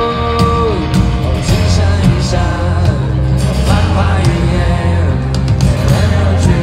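Live rock band playing loudly through a festival PA: drums, guitars and keyboard, with a male voice singing at times, recorded from within the crowd. A long held sung note ends just under a second in.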